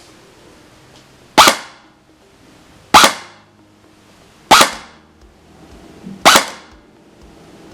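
S&T Sportsline M4 airsoft electric gun with a G3 micro-switch gearbox firing four single shots about a second and a half apart, each a sharp snap that dies away quickly.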